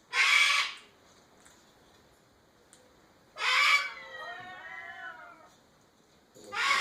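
Three loud, harsh meow-like animal calls, about three seconds apart; the second trails off into a wavering warble lasting about two seconds.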